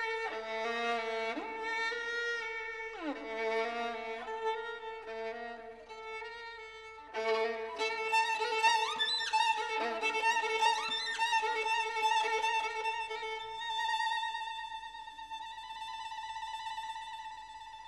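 Violin music: a melody with slides between notes and long held notes, one note held through the last few seconds.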